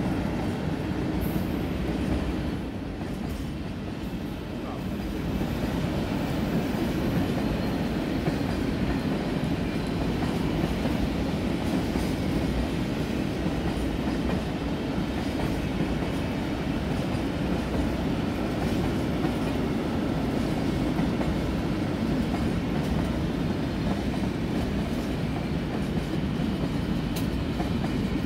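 A long freight train of high-sided open freight wagons rolling past at steady speed: a continuous low rumble and rattle of wheels on rail.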